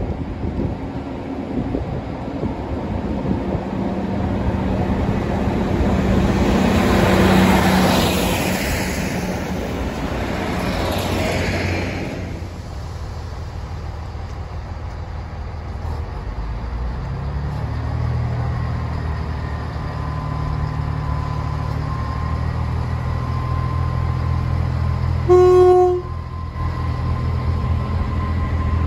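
Class 158 diesel multiple unit running into the station: the noise of its approach swells and fades over the first dozen seconds, then its underfloor diesel engines throb steadily as it stands at the platform. About 25 seconds in it gives one short toot on its horn, the loudest sound.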